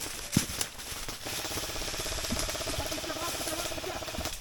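Airsoft electric gun firing one long full-auto burst of about three seconds: a fast, even buzzing rattle that starts about a second in and stops abruptly. A single sharp knock comes just before it.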